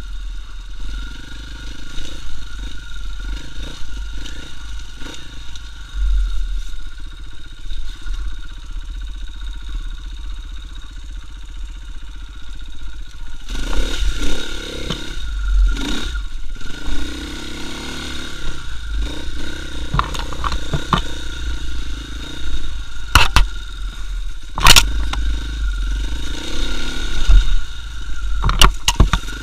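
KTM EXC 450 single-cylinder four-stroke enduro engine running steadily at low speed, then louder and harder-worked from about halfway through as the bike pulls up a rough, rutted section. Sharp knocks and clatter of the bike over rough ground come several times in the second half.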